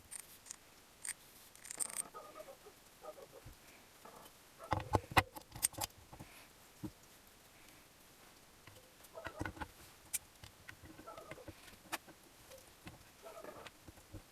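Scattered light clicks and knocks of small engine parts being handled during assembly, with a denser run of knocks about five seconds in and another cluster about nine seconds in.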